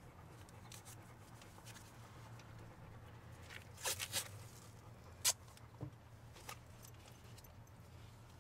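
Tape being handled and wrapped by hand: faint rustling with a few sharp clicks and crackles, a quick cluster just before the middle and the loudest single click a little after, over a steady low hum.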